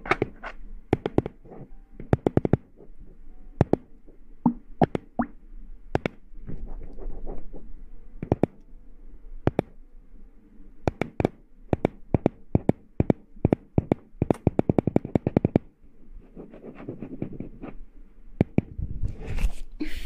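Close-miked ASMR trigger sounds: sharp, irregular clicks and plops, at times in quick runs of several a second.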